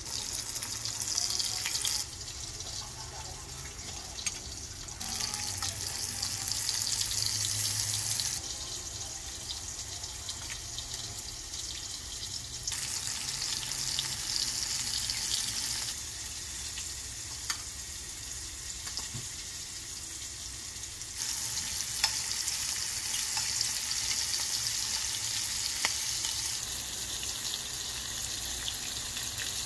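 Flour-breaded shrimp frying in hot olive oil: a steady sizzle with occasional small pops. The level jumps up and down abruptly several times.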